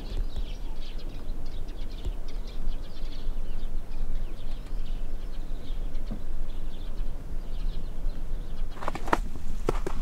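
Small birds chirping and twittering in short high calls over a steady low rumble, with a run of sharp knocks in the last second or so.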